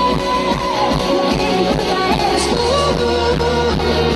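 Live band music from a Galician verbena orchestra played loud through the stage sound system, with a woman singing long held notes over the band.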